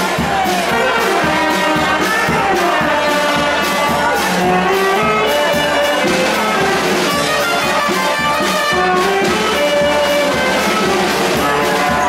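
Brass band music, trumpets and trombones playing a melody over a steady beat.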